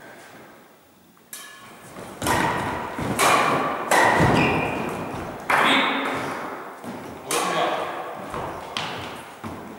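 Badminton rackets striking a shuttlecock in a rally: a series of sharp hits, roughly one a second, each followed by a long echo in a large gymnasium hall, with thuds of players' feet on the wooden floor.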